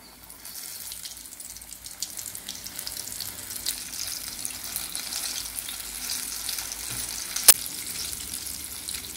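Flour-coated chicken pieces deep-frying in hot oil: steady sizzling and crackling as they are lowered in. A single sharp click about seven and a half seconds in.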